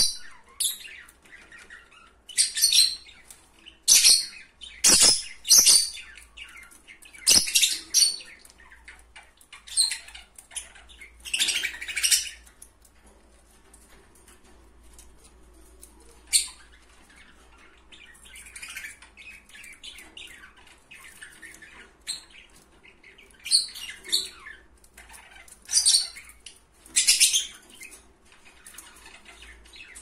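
Small pet parrots chirping in short, shrill bursts, on and off throughout, with a few knocks in the first several seconds.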